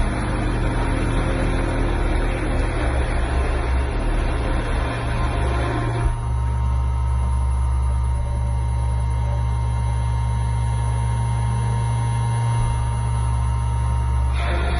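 Parallel kinematic machining robot running: a steady low hum with a constant whine, and a rougher noisy layer that drops away about six seconds in and returns near the end.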